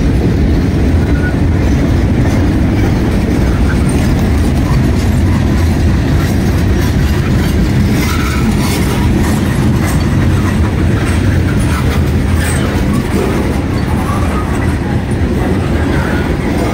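Freight cars rolling past at close range: a steady, loud rumble of steel wheels on the rails, with scattered clicks and clanks from the wheels and cars.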